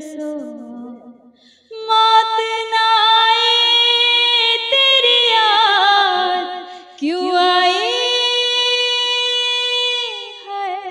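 A young woman singing unaccompanied, drawing out long held notes in a Hindi film-song melody. The first note wavers through ornamented turns; about seven seconds in she swoops up into a second long held note.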